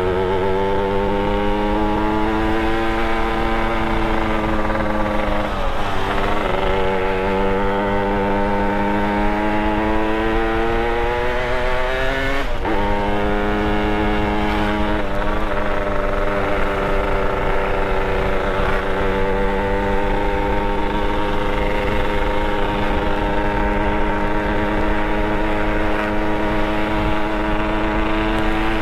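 Motorcycle engine running under load. Its pitch climbs slowly, drops sharply twice, about six seconds in and again about twelve seconds in, as gears are changed, then holds fairly steady.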